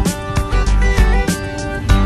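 Background music: an upbeat song with guitar, bass and a steady drum beat.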